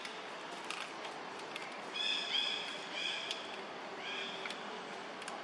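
Three short, high-pitched animal calls, each a brief clear note with overtones, coming about a second apart in the middle of a steady outdoor background.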